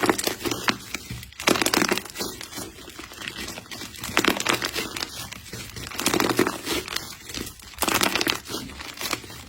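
Slime being squeezed and worked by hand, crackling and crinkling in swells about every two seconds.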